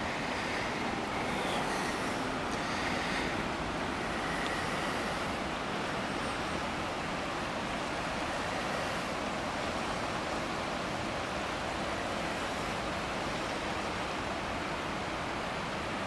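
Steady rushing of a small creek flowing over rocks, an even unbroken wash of water noise.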